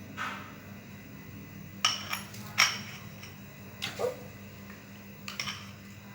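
Kitchen utensils clinking against dishes while pizza sauce is spread on the base: several sharp clinks in small groups, a few ringing briefly, over a faint steady hum.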